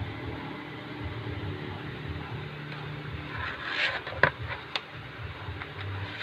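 Album packaging being handled while unboxed: a brief rustle, then a sharp click and a second lighter click, with a few faint ticks, over a steady low hum.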